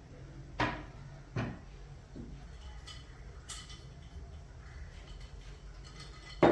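A handful of short knocks and clunks of things being handled in a kitchen, spaced a second or so apart, with the loudest knock near the end.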